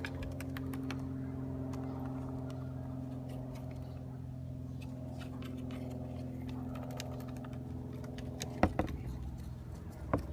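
A Jerusalem cricket scrabbling against the plastic dust cup of a Shark Navigator vacuum cleaner as it tries to get out: faint light ticks and scratches over a steady low hum, with a few sharper knocks about eight and a half seconds in.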